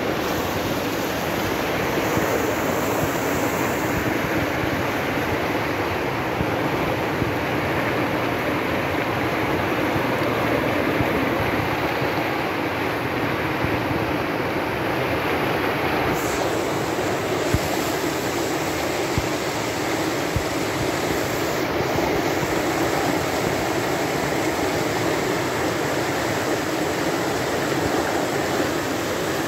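Muddy floodwater rushing down a river channel: a loud, steady rush of water.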